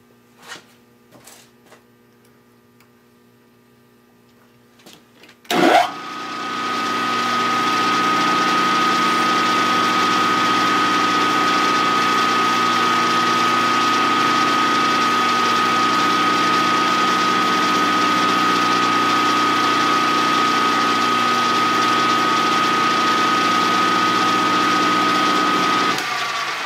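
A few light clicks, then a benchtop milling machine is switched on with a sharp clunk about five and a half seconds in. Its spindle runs up to speed and holds a steady whine while a small drill in its chuck bores the tap-drill hole for a 4-40 thread in a metal plate. The machine winds down just before the end.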